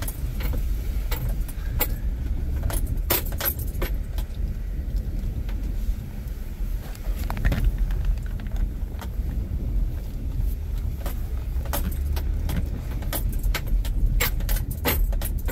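A vehicle being driven, heard from inside: a steady low rumble, with keys jangling and sharp rattles at irregular moments, thickest near the end.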